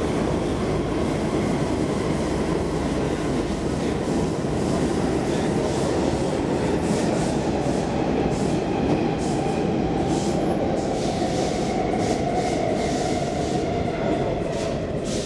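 Stockholm Metro C14 subway car heard from inside, running through a tunnel: a steady, loud rumble of wheels on rail with scattered clicks and rattles. Near the end a faint whine drops in pitch as the train slows for a station.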